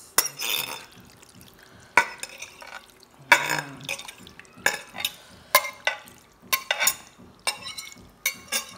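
Metal knife scraping and clinking against a glass dish as jelly cubes are pushed off into a plastic tub: a dozen or so sharp clinks and short scrapes at uneven intervals.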